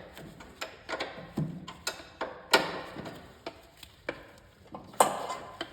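Irregular metal clicks and taps of a wrench working a 7/16 bolt loose, the two sharpest about two and a half seconds and five seconds in.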